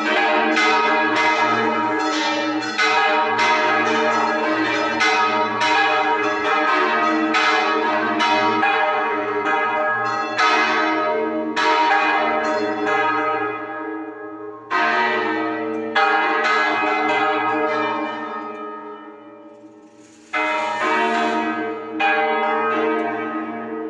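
Church tower bells swinging full circle in a Spanish-style volteo, their clappers striking repeatedly with long ringing decay. The strikes come thick and overlapping at first, then thin out in the second half to single strokes a second or more apart, each fading away before the next.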